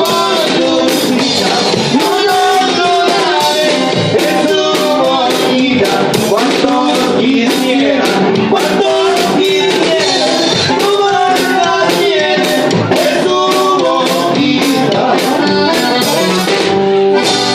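Live band of accordion, acoustic guitar and electric bass playing a Mexican regional song, with a man singing over a steady beat.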